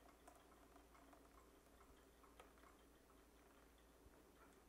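Near silence: room tone with a few faint, small ticks.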